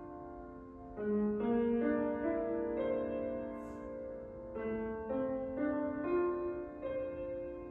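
Steinway grand piano played by a young child: a slow, simple melody over held chords, each group of notes struck and left to ring and fade before the next.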